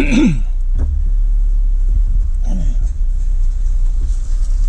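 Steady low rumble of a car, with a short voice fragment at the start and another about halfway through.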